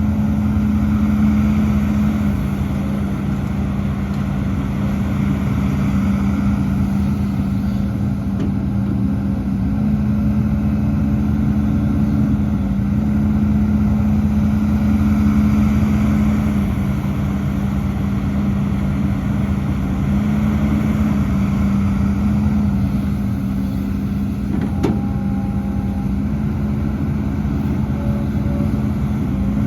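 Hidromek HMK230LC excavator's diesel engine running steadily under work, its pitch stepping slightly up and down.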